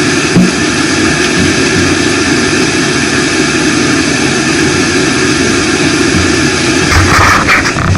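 A vehicle engine running steadily and loud, with a few clattering knocks about seven seconds in, then a sudden cut-off.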